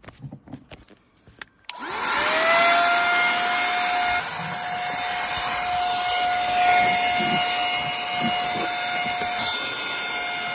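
A 360 battery-powered car vacuum cleaner is switched on after a few faint clicks. Its motor whines up to speed in a fraction of a second, then runs steadily with a loud, high whine over the rush of air.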